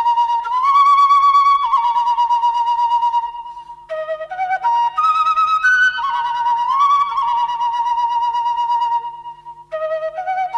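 Background music: a solo flute playing a slow melody of long held notes with small upward slides, pausing briefly about four seconds in and again near the end.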